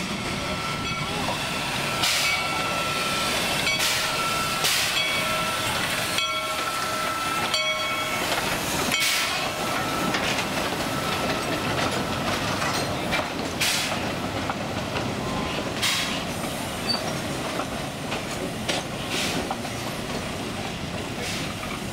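Narrow-gauge heritage steam locomotive and its train running toward the station: a steady rumble and hiss. A high, steady squeal is held from about a second in until about eight seconds, and sharp clanks come every few seconds.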